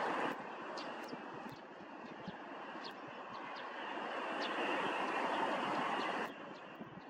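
Twin turbofan engines of a jet airliner taxiing at low power, a steady jet noise. It drops suddenly in level shortly after the start, swells again over the next few seconds, then drops suddenly once more near the end.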